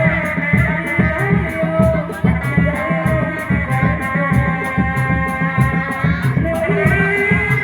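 Jaranan (kuda lumping) ensemble music: drums keep a fast, steady beat under a melody of held notes.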